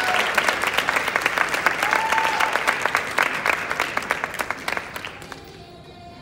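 Audience applauding, with sharp claps close to the microphone, dying away about five seconds in.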